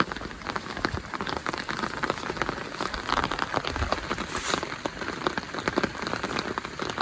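Heavy rain falling, a dense, rapid patter of drops striking the surface.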